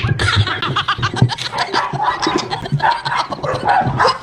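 People laughing and snickering, mixed with some talk.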